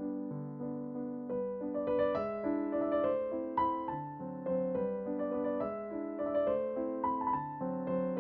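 Background music: a gentle piano melody, notes struck singly and fading, over a repeating low accompaniment.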